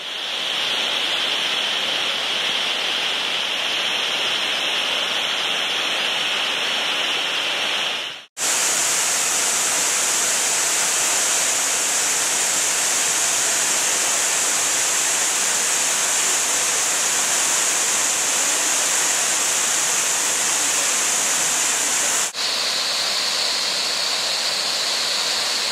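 Waterfall: a steady rush of falling water. It cuts out for an instant about eight seconds in and dips briefly again near the end, shifting slightly in character after each break.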